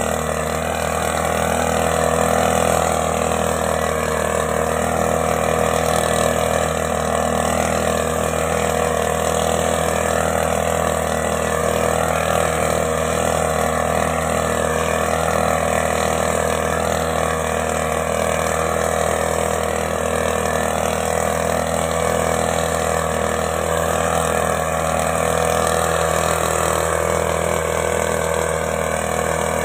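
Small two-stroke engine of a backpack power mist blower running steadily while it blows granular fertilizer out through its tube.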